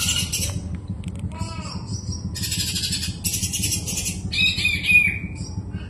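Kapas tembak songbird singing in repeated high, chattering phrases mixed with clear whistled notes, over a steady low background hum.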